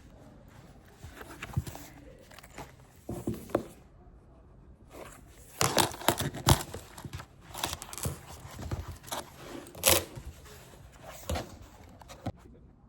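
Irregular rustles, taps and clicks of things being handled, busiest in the middle.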